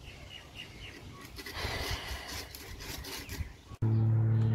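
Faint outdoor background with a few short high chirps, then, after an abrupt cut near the end, a loud steady low hum.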